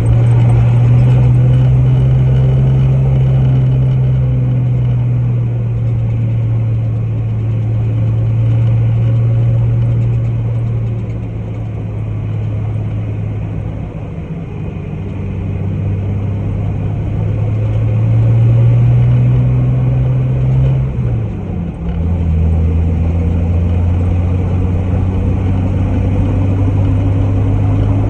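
Off-road jeep's engine running steadily while driving. Its drone climbs a little, then drops sharply about three-quarters of the way through and holds at a lower pitch.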